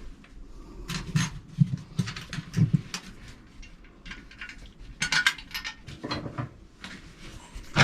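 Scattered hard clinks and knocks of toilet parts and tools being handled and fitted, in irregular clusters, with the loudest around a second in, about five seconds in and at the end.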